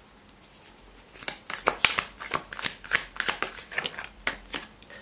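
A deck of tarot cards being shuffled by hand. The first second is quiet, then a quick, uneven run of card flicks and slaps goes on until near the end.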